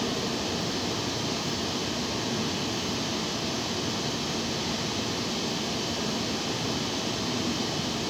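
Air-conditioner outdoor unit running, a steady even noise of compressor and fan with no change in level.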